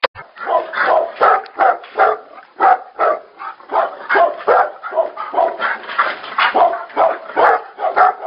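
Tibetan Mastiff barking over and over in a steady run, about two to three barks a second.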